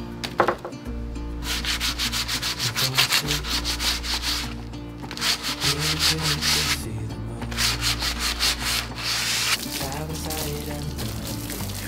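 Wooden bench slats being hand-sanded with sandpaper: quick, rhythmic back-and-forth rasping strokes in three runs with short pauses between. Near the end the strokes give way to a steady hiss of water from a garden hose spraying the bench.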